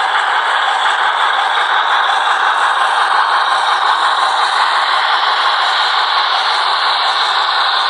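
Sound-equipped H0 model of the Br 96 Mallet steam locomotive running, its small speaker playing a steady rushing steam sound mixed with rattling from the running gear on the track.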